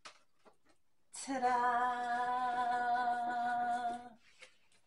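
A woman singing a long "ta-daaa" as a fanfare, holding one steady note for about three seconds.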